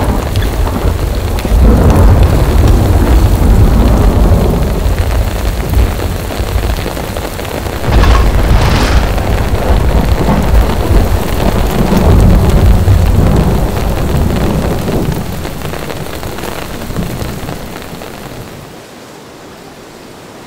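Thunderstorm: heavy rain with rolling thunder that swells several times, with a sharp crack about eight seconds in, then fades out over the last few seconds.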